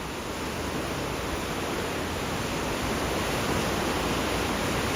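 Steady rushing of running, splashing water, an even hiss that slowly grows a little louder.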